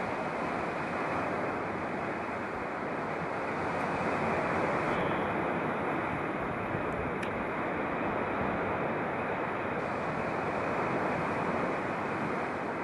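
Sea surf breaking against a rocky shore: a steady rush of waves.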